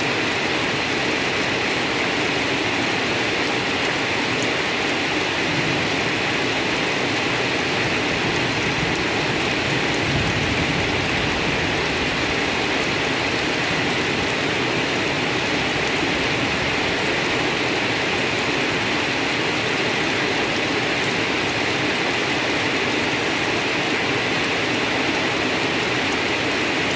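Steady rain falling on grass and low leafy undergrowth: an even, unbroken hiss.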